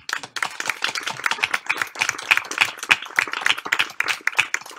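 Audience applauding, many hands clapping at once; it starts suddenly.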